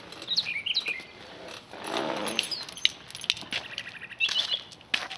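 Small birds chirping while a person gets up from a cushioned porch swing, with rustling and a few knocks and steps as they move.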